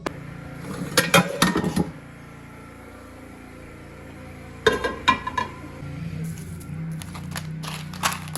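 Kitchenware clattering and clinking in three short bursts, a second or so each, over a steady low hum.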